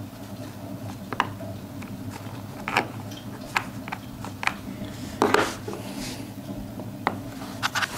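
Light metallic clicks and taps of round-nose pliers working the prongs of a small gilt belt rosette through fabric, about seven in all, the loudest about five seconds in, over a steady low hum.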